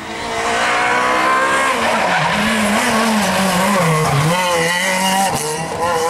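Renault Clio rally car engine revving hard as it comes past at speed: the engine note swells just after the start, rises and falls as the driver lifts and gets back on the throttle, dips about four seconds in, then climbs again.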